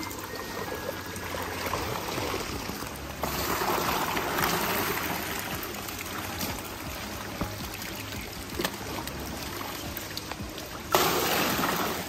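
Running and splashing water at the koi holding tubs, getting louder abruptly about three seconds in and again near the end, over a steady low hum.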